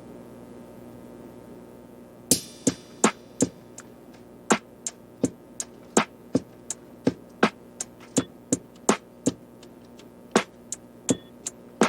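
Background music: a quiet sustained hum, then a programmed drum-machine beat of sharp hits comes in a little over two seconds in.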